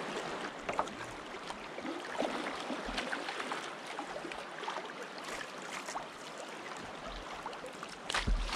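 Kayak paddle strokes in river water: the blade dipping and splashing, with water trickling and gurgling off it, and a louder splash near the end.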